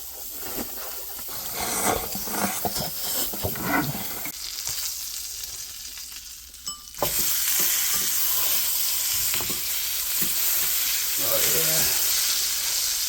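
Burger patty frying in butter in a pan, sizzling, with a few clinks and scrapes. About halfway through the sizzle suddenly becomes much louder and stays loud.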